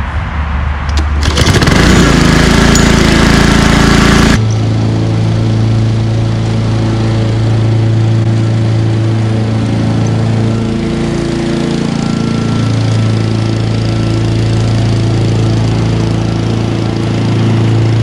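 Gas walk-behind lawn mower engine starting about a second in and running up loudly to speed, after sitting over winter and being given fresh fuel, a new air filter and spark plug. It then settles into a steady engine hum as the mower cuts grass, with a brief dip in the hum around the middle.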